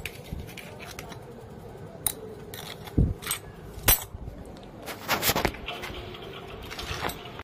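Hand tools and metal pipe fittings being handled and dropped into a wooden box: separate clinks and knocks every second or so, with a quick cluster of clatters about five seconds in.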